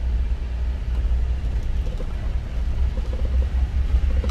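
Low, uneven rumble inside the cab of an Isuzu Elf 4x4 campervan driving over a broken, landslide-damaged road surface.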